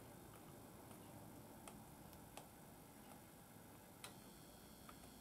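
Near silence with a few faint, irregular clicks from hands handling a roll of electrical tape.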